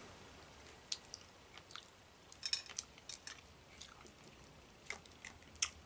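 Faint, scattered cracks and clicks of a steamed king crab leg shell being picked and pulled apart by hand, about eight small snaps at uneven intervals.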